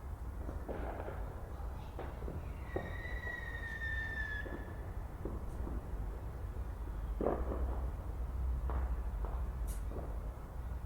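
Distant fireworks display: scattered bangs and crackles, with a whistling firework that holds a long whistle and sinks slightly in pitch for about two seconds, over a steady low rumble.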